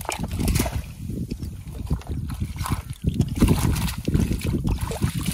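Water splashing and draining from a China duari, a long fine-mesh box-trap fishing net, as it is hauled and shaken in shallow water, over a heavy, uneven rumble of wind on the microphone.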